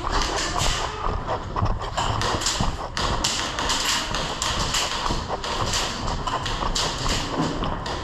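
Irregular taps and thuds of footsteps and knocking gear on a hard floor, several a second.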